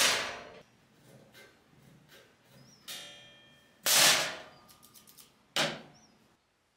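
Large polished steel plate being handled on a workbench: a light metallic clang with brief ringing about three seconds in, set between loud whooshes at the start and about a second after the clang, then a short knock near the end.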